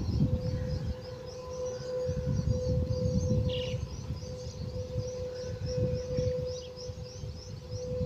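A steady, unbroken droning tone, with birds chirping in a rapid series above it and an uneven low rumble that swells and fades.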